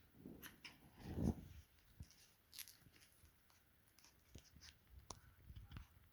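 Faint scattered clicks, taps and rustles, with one louder soft thump about a second in: handling and movement noises.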